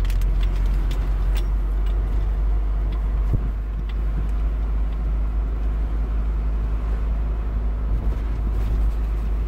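Car cabin noise while driving: the engine and tyres on the road make a steady low rumble.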